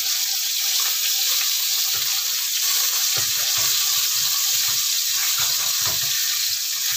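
Red snapper heads frying in hot oil in a wok: a loud, steady sizzle. A spatula moves the pieces at first, and a few soft low knocks come in the second half.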